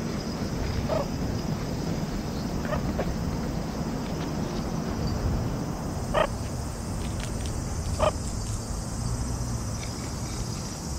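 A few short, sharp animal calls over a steady low background rumble; the two loudest come about six and eight seconds in.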